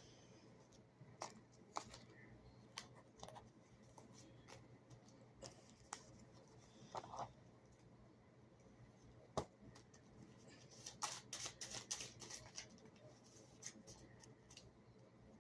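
Near silence in a small room, broken by scattered faint clicks and rustles of small objects being handled, one sharper click about nine seconds in and a quick run of them around eleven to twelve seconds in.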